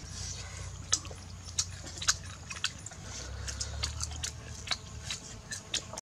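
Mouth sounds of people eating peeled boiled eggs: chewing, with irregular sharp clicks and lip smacks scattered throughout.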